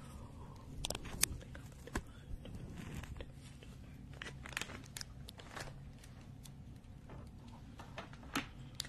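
Crinkling and crackling of a holographic foil packet handled close to a microphone, heard as scattered sharp clicks and rustles.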